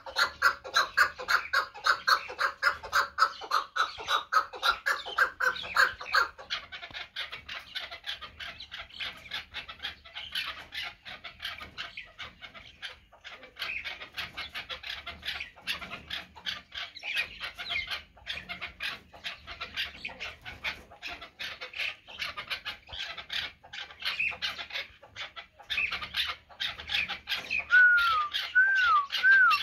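Chukar partridges calling: a fast run of harsh repeated chuk notes, about five a second, loudest in the first six seconds and then going on more softly. A few short rising-and-falling notes come near the end.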